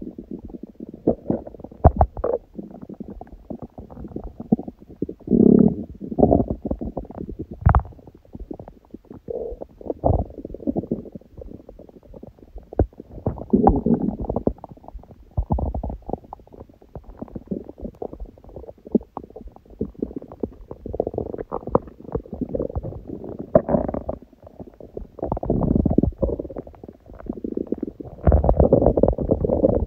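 Empty stomach growling with hunger: irregular low rumbles mixed with rattling, popping gurgles and a few sharp clicks, coming in bursts of varying strength.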